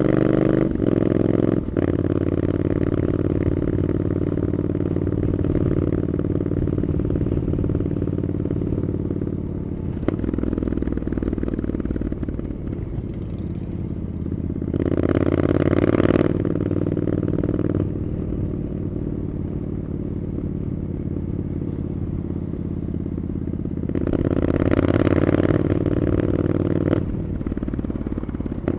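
Triumph Scrambler 900's parallel-twin engine running through an Arrow aftermarket exhaust, cruising at steady low revs. The engine opens up and gets louder twice: briefly about halfway through, then for a few seconds near the end.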